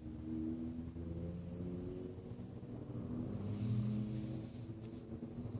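A sleeping dog snoring: one long, low, droning snore that swells a little past the middle.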